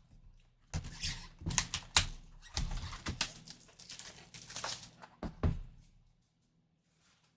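Plastic shrink-wrap being torn and pulled off a trading card box: irregular crinkling and crackling for about five seconds, stopping about six seconds in.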